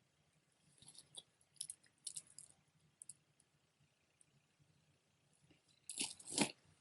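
Jewelry being handled: small, scattered clicks and clinks of chains, clasps and beads, with a louder clatter about six seconds in.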